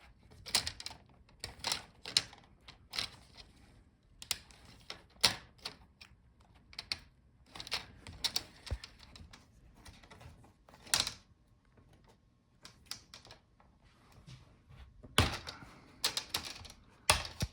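Plastic clips of an Acer Nitro 16 laptop's screen bezel clicking and snapping loose as the bezel is pried and wiggled off. The sharp, irregular clicks come about one or two a second, with a louder cluster near the end.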